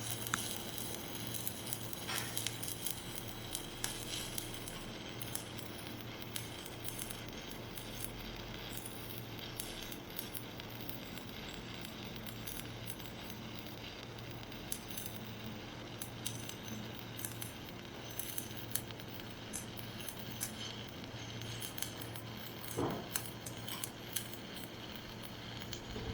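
Stick-welding arc from a 1/8-inch 7018 rod at about 100 amps: a steady crackling sizzle with scattered sharp pops.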